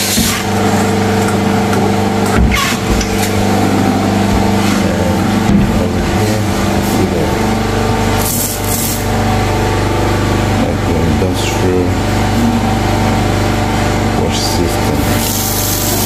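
Steady drone of a power generator running, with a few short knocks and clatters. Near the end, water starts running from a kitchen tap into a metal sink.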